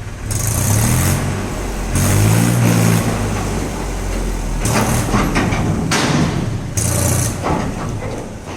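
Dump truck engine running and revving while the truck tips its load of river sand. Several short bursts of hissing, rushing noise come over the engine.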